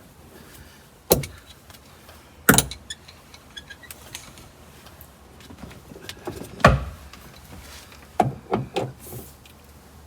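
Scattered sharp metal clicks and knocks of a socket on a breaker bar as the seatbelt hanger bolt is tightened, with a loud knock about a second in, another at two and a half seconds, one near seven seconds and a quick cluster near the end.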